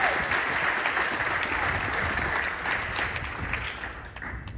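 Crowd applauding, the clapping fading away near the end.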